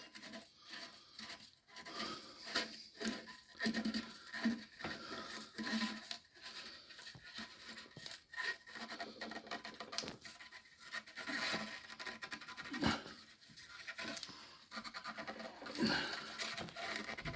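A nut being tightened onto a toilet cistern's syphon fittings: irregular scratching, rubbing and small clicks of the threads and parts being worked.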